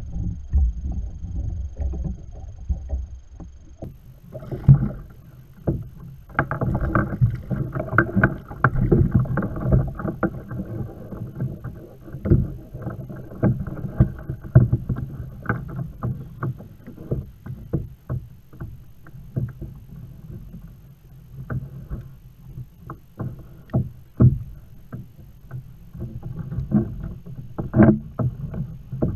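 Repeated knocks and thumps on a plastic Hobie Outback kayak hull with water sloshing around it, as a gaffed kingfish is handled alongside and brought aboard. The knocking is busiest for about ten seconds, starting around six seconds in, then thins out to scattered knocks.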